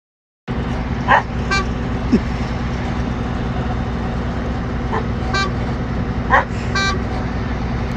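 Combine harvester running steadily with a low engine rumble, starting about half a second in. Short high dog barks come over it in quick pairs, four times.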